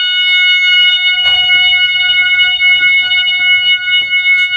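System Sensor MASS horn strobe sounding its horn: one steady, loud, unbroken electronic tone with a few faint clicks scattered through it.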